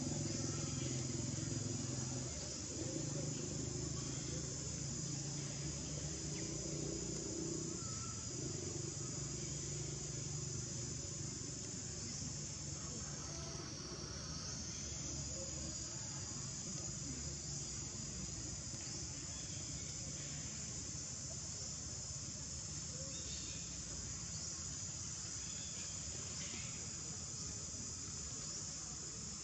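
Steady high-pitched insect chorus that dips briefly about halfway through, with a low background hum that fades after the first several seconds.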